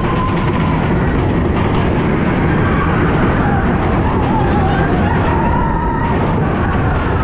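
Big Thunder Mountain Railroad mine-train roller coaster running along its track: a loud, steady rumble of the moving train, with faint wavering high notes coming and going over it.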